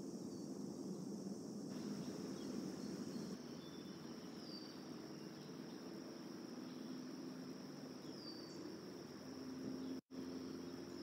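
Steady chorus of insects, a continuous high trill that never lets up, over a low rumble of background noise; the sound drops out for a split second near the end.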